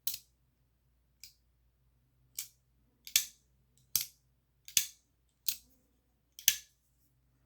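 Folding pocketknife being flicked open and snapped shut again and again, its blade and lock clicking eight times, about one click every second. From about three seconds in the snaps are louder, several with a light tick just before.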